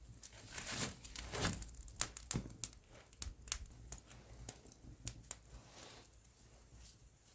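Rustling with a string of small clicks and scrapes, like things being handled at close range. The sounds are busiest in the first five seconds and thin out towards the end.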